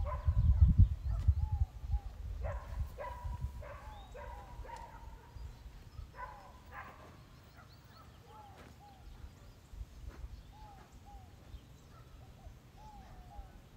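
Outdoor animal calls: a few short barking calls in the first seven seconds, and small repeated chirping bird calls throughout, over a low rumble that dies away after the first two seconds.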